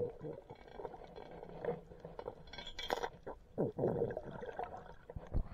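Muffled underwater sound heard through an action camera's waterproof housing on a free dive: dull water noise with scattered small clicks and knocks.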